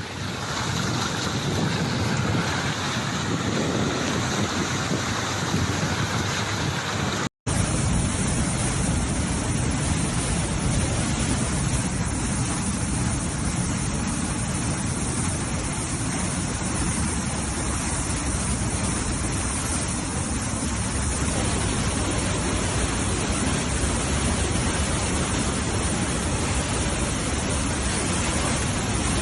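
Steady rushing noise of fast-flowing floodwater, with a brief dropout about seven seconds in.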